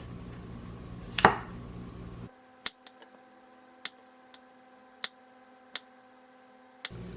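Kitchen knife slicing white mushrooms on a cutting board. There is one loud knock about a second in, then about six sharp, irregular taps of the blade meeting the board over the next few seconds.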